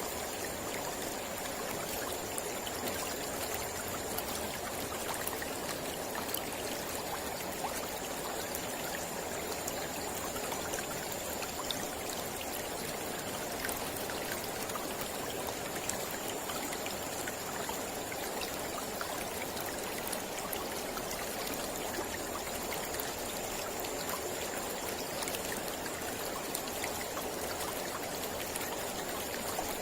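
Mountain river flowing steadily: an even, unbroken rush of water dotted with many small splashes.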